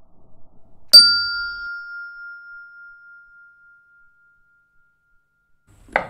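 A single bright bell ding, struck once about a second in and ringing out for about three seconds as it fades. A brief sharp sound follows right at the end.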